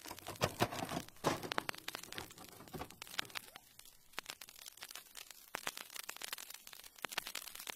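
Faint, irregular crackling and clicking, densest in the first second and a half and sparser after.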